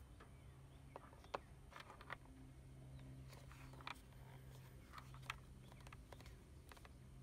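Faint handling sounds of an adhesive LED light strip being pressed onto the plastic underside of a scooter seat: scattered small clicks and taps over a low steady hum.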